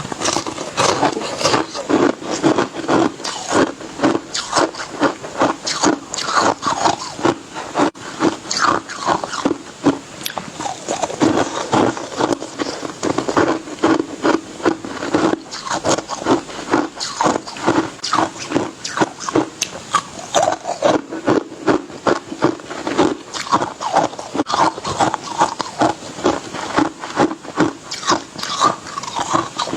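Ice being chewed and crunched between the teeth close to the microphone: a continuous run of sharp crunches, several a second.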